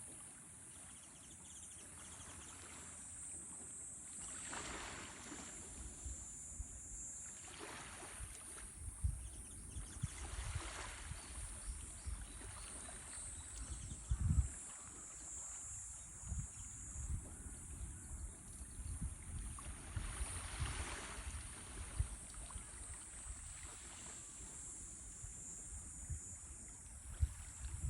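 Natural outdoor ambience of water washing in swells a few seconds apart, with wind gusting and rumbling on the microphone and a steady high hiss above.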